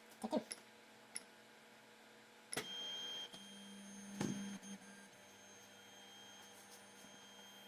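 3D printer at work: a few small clicks, then a short high beep about two and a half seconds in. A low motor hum runs for about two seconds, with a click in the middle of it.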